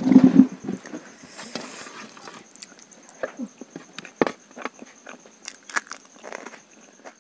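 Eating by hand: fingers squelching and squeezing rice and soft curry on a steel plate, with wet mouth smacks and chewing as irregular sharp clicks. A louder short burst of noise comes right at the start.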